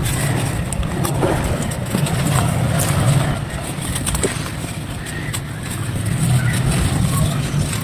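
Dry clay and sand crumbling under pressure: a dense run of crunchy crackles with sharp clicks scattered through it, over a steady low rumble.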